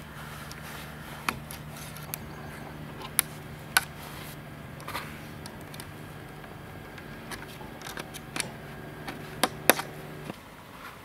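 Irregular sharp clicks and snips of hand work tying the willow-branch frame together, a few louder than the rest, over a steady low hum that cuts off abruptly near the end.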